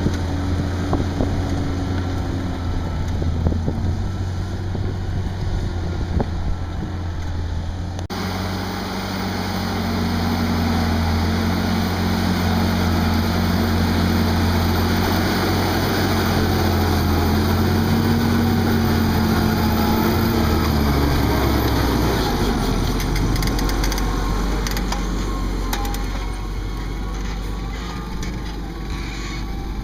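Fendt 936 tractor's six-cylinder diesel engine running steadily while pulling a seven-furrow plough. About two-thirds of the way through, the engine note drops lower.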